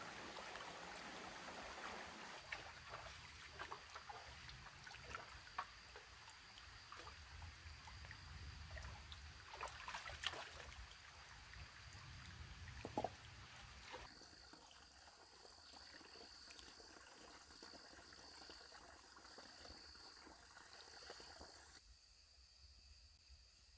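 Faint trickle of a shallow forest stream, with scattered splashes and sloshes as bare feet wade and hands search the stream bed. About two-thirds through it turns quieter, with a steady high insect buzz over the water.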